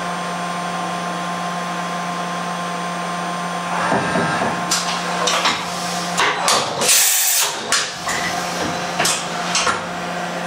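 Mori Seiki NVX5080 CNC vertical machining center running with a steady hum, with several sharp clunks in the second half and a short burst of loud hiss about seven seconds in.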